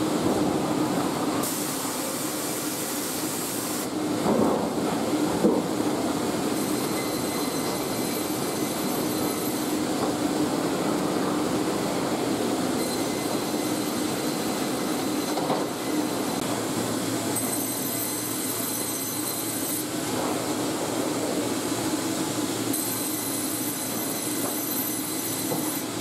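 Sawmill band-saw line running: a steady mechanical din with a low hum, a couple of knocks about four and five seconds in, and a high metallic whine that comes and goes in stretches of about three seconds as a squared log is fed through the vertical band saws.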